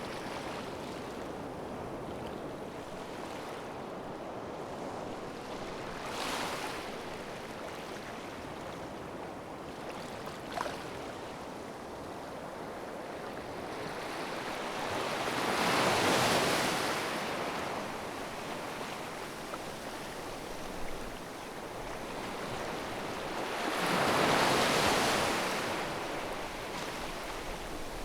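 Ocean waves washing onto a shore: a steady surf hiss with a smaller surge early on and two larger waves breaking and washing in, one a little past halfway and one near the end.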